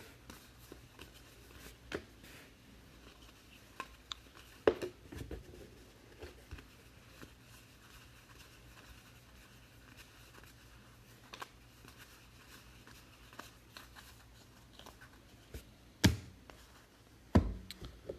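Trading cards being handled and sorted by hand: soft shuffling and scattered light taps, with sharper knocks about five seconds in and twice near the end, over a faint steady hum.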